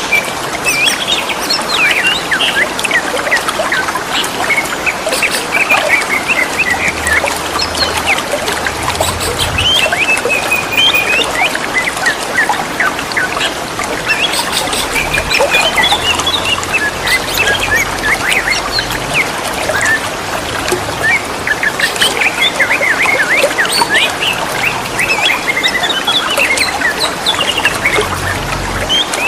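Green leafbirds (cucak ijo) singing and answering each other with quick chirps and whistled phrases over steady trickling water.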